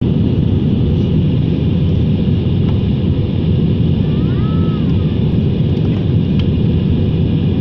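Steady low roar inside the cabin of an Airbus A320-216 airliner in flight, heard from a window seat behind the wing: its CFM56 turbofan engines and the airflow over the fuselage. A faint tone rises and falls about four seconds in.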